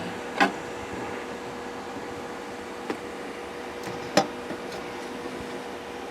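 A steady mechanical hum with a constant faint tone, broken by three short clicks: about half a second in, about three seconds in, and the loudest about four seconds in.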